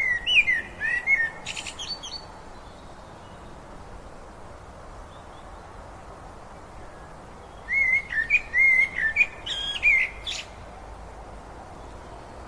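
A songbird singing two short phrases of quick warbling, twittering notes, one at the start and one about eight seconds in, over a steady rush of river water.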